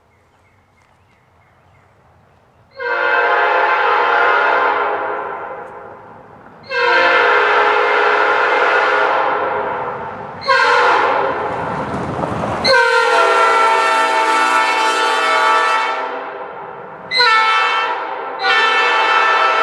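A multi-chime railroad air horn sounding a series of long and short blasts, starting after a few seconds of quiet. Each blast is a loud, steady chord of several notes.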